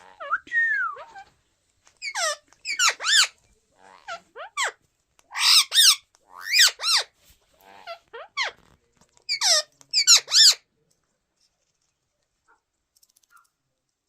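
Indian ringneck parrots calling: a series of short, loud calls, often two or three close together, that stop about ten seconds in.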